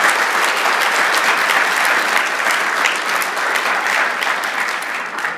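Audience applauding: a dense patter of many hands clapping that eases slightly near the end.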